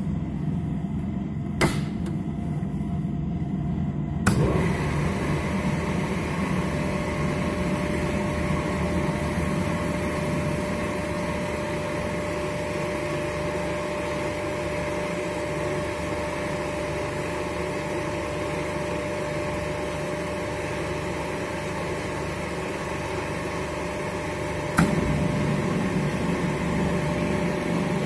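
AC contactors on a motor-control panel clicking sharply as they switch, about two seconds in, about four seconds in, and again near the end, over a steady electrical hum. After the second click a louder steady hum with a held mid-pitched whine sets in and runs on.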